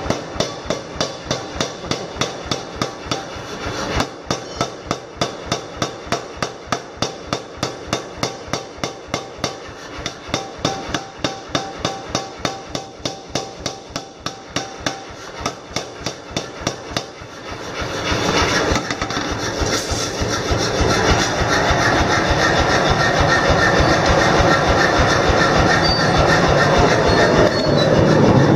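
Mechanical power hammer pounding a red-hot machete blade in a steady rhythm of about three blows a second. About 17 s in, the blows give way to a louder, steady roar with a fast rattle from a forge furnace heating a row of blade blanks.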